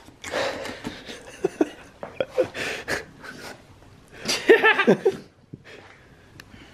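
Mazda 13B rotary engine housings handled and set in place, giving a few short metal knocks and clinks, with a brief wordless vocal sound about four and a half seconds in.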